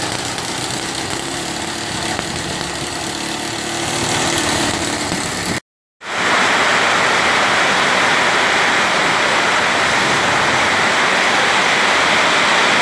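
Amphibious boat's engine running steadily. About five and a half seconds in the sound cuts out briefly, then a loud, even hiss takes over to the end.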